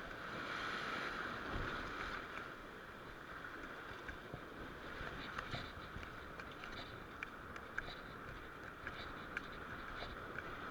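Sea waves washing onto a beach and rocks at high tide, a steady rushing wash, with scattered faint ticks.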